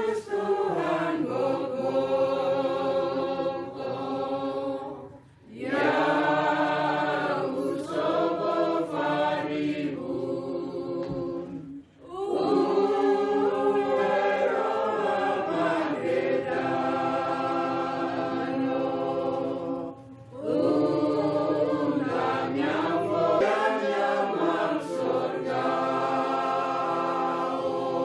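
Choir singing in long sustained phrases, with brief pauses between phrases.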